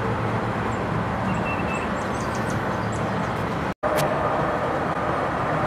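Steady rumble of passing vehicles, with a few faint high chirps in the first half. The sound cuts out for an instant about two-thirds through, then carries on.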